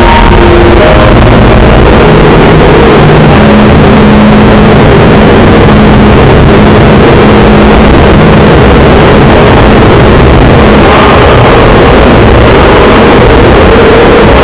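Heavily distorted, clipping electronic audio at full volume: a constant wall of harsh noise with a few slow, held low notes showing through, mostly in the first half.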